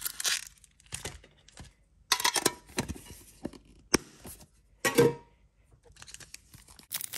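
Foil booster pack crinkling and rustling as it is pulled from a metal mini tin and handled, in several separate bursts. About four seconds in comes a sharp click of the tin, and a second later a brief ringing clank of the metal tin.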